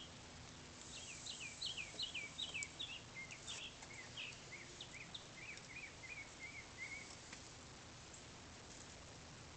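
A songbird singing: a run of quick downward-slurred notes, about three a second, that step gradually lower in pitch for some six seconds, over a faint steady hiss.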